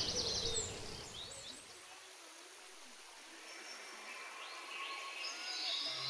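Thin sheet of water running down a rock face, faint and steady, with a few short bird chirps about half a second in and again near the end. Background music fades out over the first second or so.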